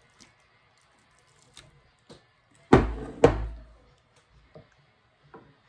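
Two heavy knocks about half a second apart as a ceramic mixing bowl of chicken dressing is tipped and knocked against a glass baking dish on the table, with a few faint soft clicks of the wooden spoon and food around them.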